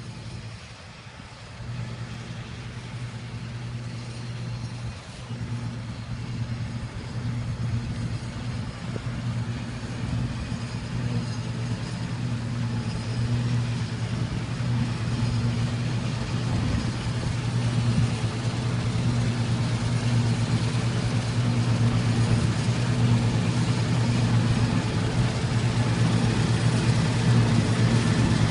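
Laverda combine harvester running steadily with a low, even diesel engine note and machinery noise, growing steadily louder.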